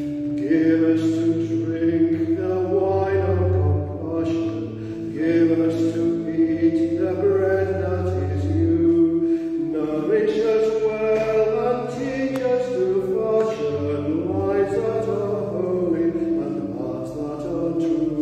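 A solo man's voice singing a hymn to church organ accompaniment, the organ holding long chords beneath the sung line.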